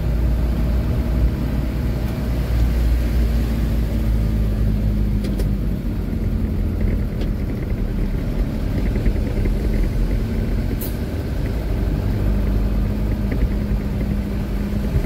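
Truck engine running steadily while driving, a constant low rumble and hum with road noise.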